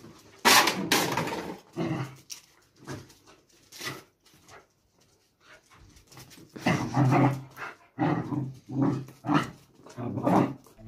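Two puppies play-fighting, making a string of short growls and barks: a loud burst about half a second in, a few scattered ones, a quieter stretch in the middle, then a rapid run of them over the last few seconds.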